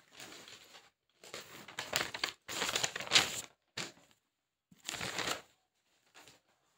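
Paper rustling and crinkling in several short bursts, loudest about three seconds in.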